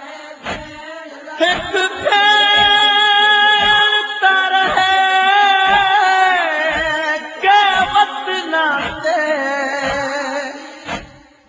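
A man sings a noha, a Shia lamentation chant, in long held notes that bend and slide down in pitch, over a regular thumping beat about two strokes a second.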